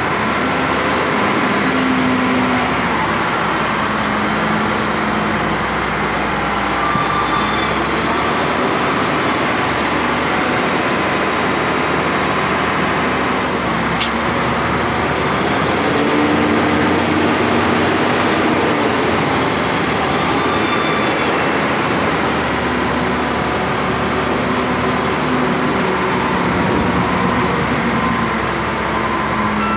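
HELI ZL50 wheel loader's diesel engine working under load as it scoops and lifts a bucket of dark bulk material, the engine note rising and falling with the work, with a high whine over it and one sharp click about halfway through.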